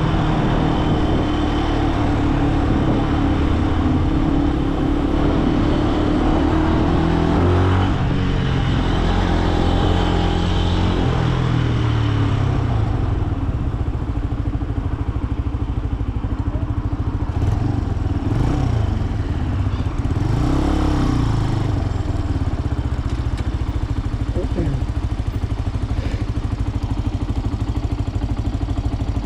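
Benelli BN125 motorcycle's single-cylinder 125 cc engine running on the move, its pitch stepping and rising with gear changes in the first half, then lower and steadier in the second half, with a few short rev rises and falls.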